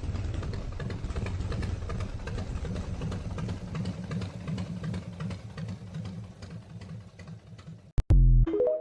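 A motorcycle engine running steadily with rapid firing pulses, cut off suddenly about eight seconds in. A short, loud tone rising in steps follows just before the end.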